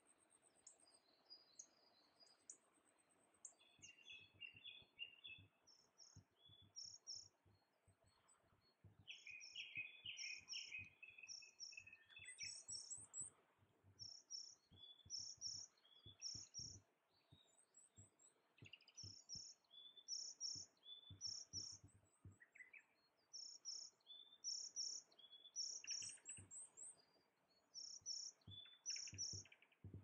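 Wild songbirds in a spring forest: a thin high call note repeated in quick pairs and triplets, about once or twice a second, with a louder, lower warbled phrase about ten seconds in.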